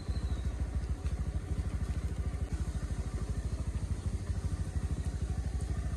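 Motorcycle engine running steadily, heard from the rider's seat, its exhaust beat an even, fast pulse with no rise or fall in revs.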